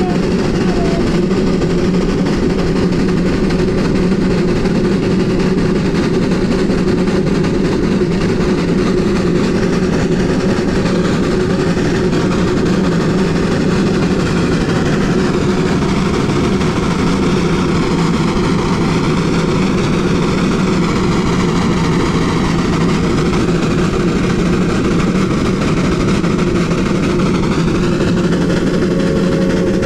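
1928 Lima Shay geared steam locomotive running along narrow-gauge track, heard close up: a loud, steady mechanical drone that holds even throughout.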